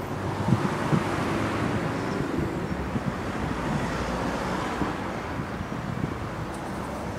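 Wind buffeting the phone's microphone in uneven low gusts over a steady wash of outdoor background noise.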